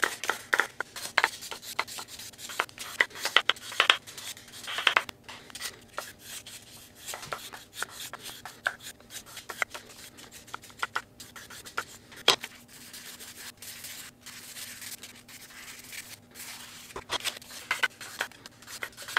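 1200-grit sandpaper rubbed by hand over the steel edge of a small ring-shaped scorp blade cut from an old wrench, in short, irregular strokes. This is fine sanding of the cutting edge, the last sharpening stage before polishing. The strokes come thick and fast for the first few seconds, then sparser.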